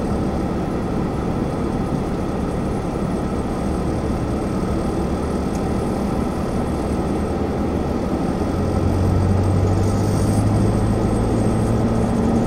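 Car engine and road noise heard from inside the moving car's cabin at low speed, a steady hum. About eight seconds in, the low engine hum grows a little louder.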